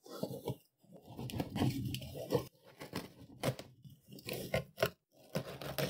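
A large cardboard box being dragged and shifted across a desk: cardboard scraping, crunching and rustling in irregular bursts, with a few sharp knocks.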